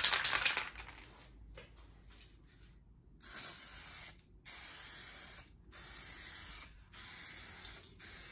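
Aerosol can of hydro-dip activator spraying onto carbon-fibre transfer film floating on water, in five hissing bursts of about a second each with short breaks. This is the activation step that softens the film's ink before the dip. A brief loud clatter is heard in the first second.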